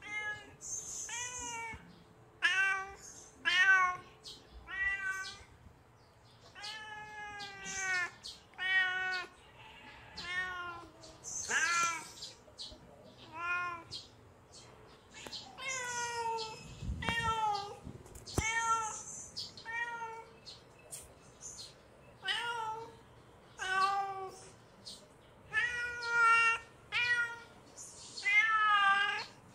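A young kitten meowing over and over, short arching calls roughly one a second: the calls of a hungry kitten.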